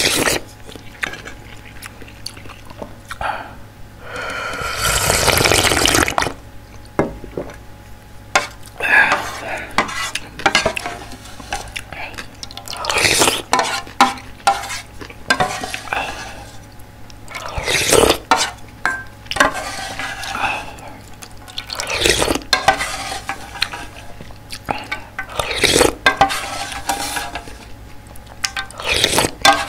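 Close-miked slurping of spicy ramyeon broth from a spoon: several slurps a few seconds apart, the longest about four seconds in. Between them the spoon dips and clicks in the aluminium ramyeon pot.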